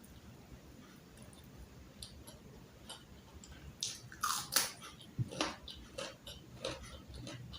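Close-miked eating: chewing, faint at first, then from about four seconds in a run of sharp wet mouth smacks and clicks.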